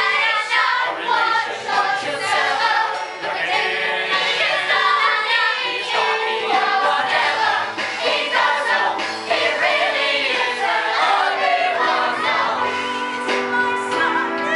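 A group of voices singing a musical-theatre number over instrumental accompaniment, without a break.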